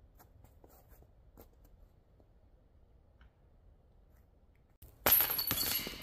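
Faint scattered steps on snow, then about five seconds in a sudden loud metallic jangle of disc golf basket chains as a disc strikes them, ringing out over about a second.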